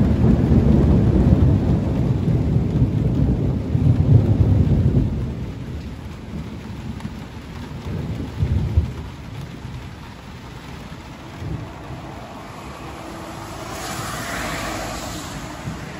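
Thunder rumbling, loud and deep for about five seconds, then dying away under steady rain. Near the end a hiss swells and fades.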